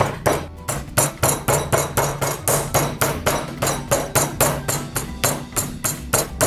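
A wooden meat mallet pounding a raw chicken breast flat on a wooden chopping board: rapid, evenly spaced blows, about four a second, with background music underneath.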